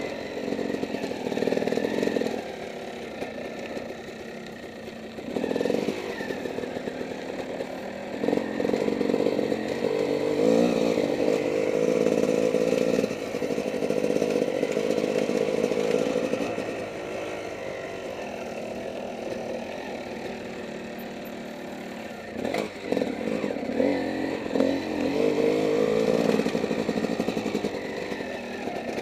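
Dirt bike engine under way on forest single track, the throttle opening and closing so the engine note rises and falls. It pulls harder for a long stretch a little past a quarter of the way in and again near the end, with a quieter, easier-running stretch between. A couple of sharp knocks come about three quarters of the way through.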